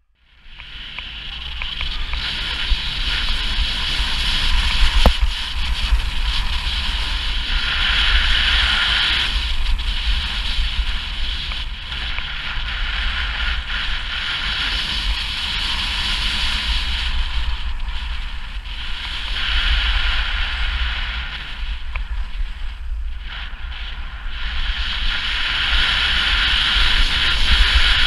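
Skis carving down a groomed piste: the edges scrape and hiss on packed snow, swelling with each turn every five or six seconds. Wind buffets the camera microphone with a steady low rumble throughout.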